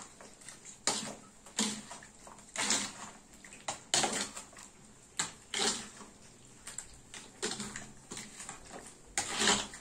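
A spoon mixing chicken pieces through a wet yogurt and herb-paste marinade in a stainless steel bowl, with a wet stroke of the spoon roughly once a second.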